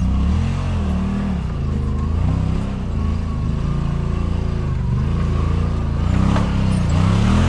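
Side-by-side UTV engine revving up and down in repeated throttle bursts as it crawls up a steep rock ledge, getting a little louder near the end as it nears.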